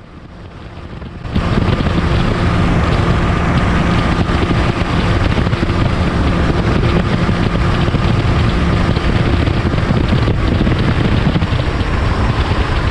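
Bass boat running flat out at about 75 mph: a loud, steady rush of wind on the microphone and water, with the 300-horsepower outboard's steady engine drone running through it. It comes in suddenly about a second in, after a quieter start.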